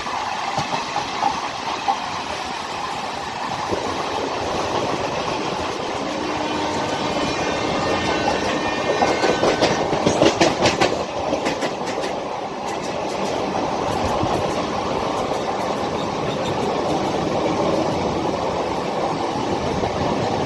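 Passenger train running on the rails with a steady rumble; about nine seconds in, a quick run of wheel clacks over the rail joints makes the loudest stretch.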